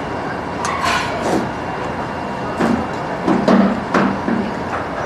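Metal spoon clinking and scraping in a stainless steel bowl of soup, with eating sounds, as a few short knocks over a steady background hum.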